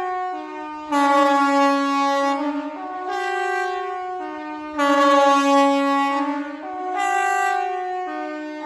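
KTG-10 siren sounding the Swiss general alarm: a horn-like tone that steps back and forth between a lower and a higher pitch, swelling louder about every four seconds.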